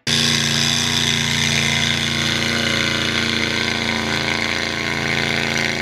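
Mega mud truck engine running steadily, a loud, even drone with no rise or fall in pitch.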